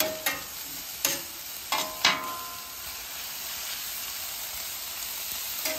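A metal spatula scraping and clanking across a flat-top griddle as it tosses diced ham, bacon, sausage, mushrooms, onions and peppers, over a steady sizzle of the frying food. There are about five scrapes in the first two seconds or so and another near the end. In between, only the sizzle continues.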